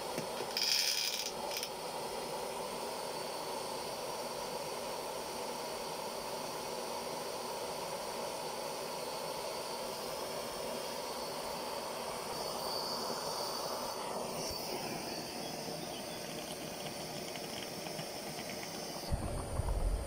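Steady hiss from a small gas burner heating a vintage Luxa Express stovetop coffee maker as it brews. A sharper, higher hiss comes about a second in, and again for a couple of seconds past the middle. A few low bumps come near the end.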